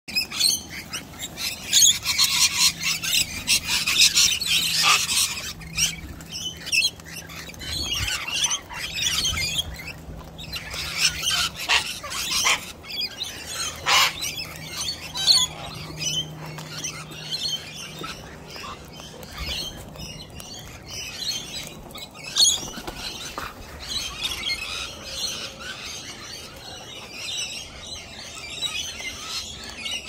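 Wild parrots, sulphur-crested cockatoos and rainbow lorikeets, chattering and squawking in high-pitched bouts, busiest in the first few seconds, again from about ten to fifteen seconds in, and near the end. A few sharp clicks stand out among the calls.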